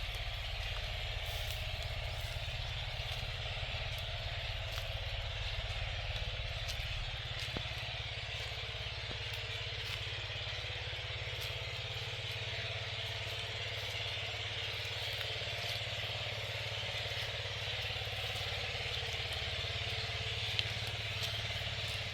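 A motor running steadily with a low hum, unchanging throughout.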